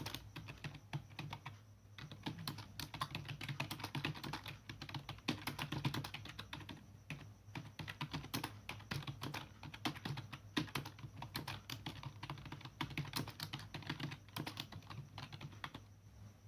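Typing on a computer keyboard at about 50 words per minute: a fast, uneven stream of key clicks with a couple of brief pauses, stopping near the end as the typing test finishes.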